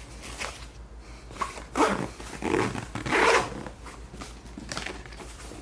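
Zipper on a nylon-canvas pistol bag being pulled open in several rasping strokes, the longest about 2 and 3 seconds in.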